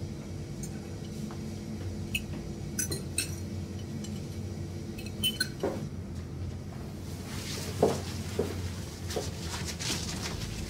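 Scattered light clinks and taps, like dishes and glassware being handled, over a low steady hum, with a stretch of rustling handling noise near the end.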